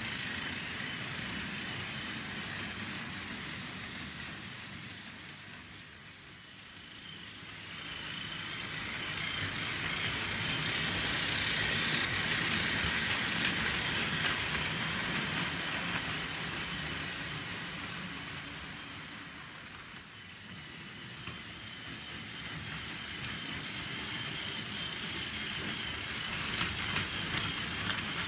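Battery-powered Plarail toy trains, including Gordon with a five-coach express, running on plastic track: a steady motor whine with wheel rattle. It swells as trains pass close, loudest about halfway through, and fades in between. A few clicks come near the end.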